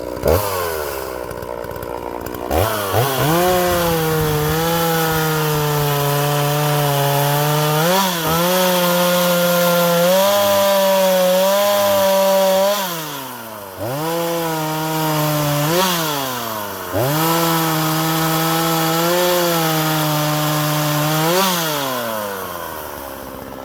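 Oleo-Mac GSH-40 two-stroke chainsaw revved up about two seconds in and run at high revs cutting wood, the engine note sagging and climbing back several times.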